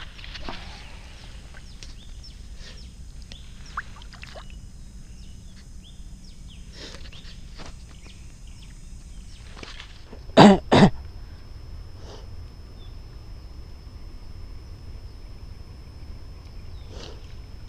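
Two loud coughs close to the microphone, about half a second apart, about ten seconds in. Under them a steady outdoor background with faint scattered chirps and clicks.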